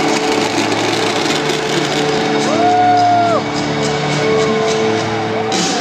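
Loud music playing over the stadium's sound system, with a crowd shouting, one long whoop about halfway through, and scattered short crackles from the fountain fireworks.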